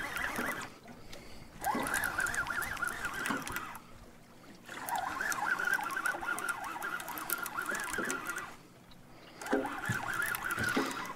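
Fishing reel buzzing in spells of a few seconds with short breaks, as a catfish is fought on the rod.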